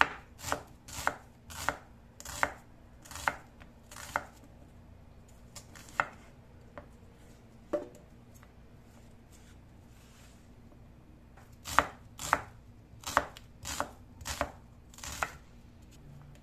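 Knife chopping on a cutting board: a quick run of about eight sharp knocks, a few scattered cuts, a pause of several seconds, then another run of about eight knocks.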